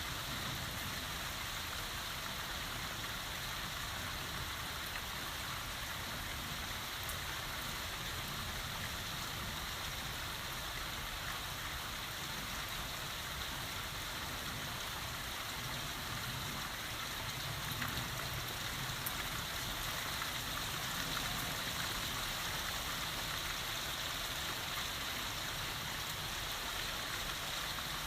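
Heavy rain falling steadily in a city suburb, an even hiss of rain on surfaces. Past the middle a low rumble swells slightly for a few seconds.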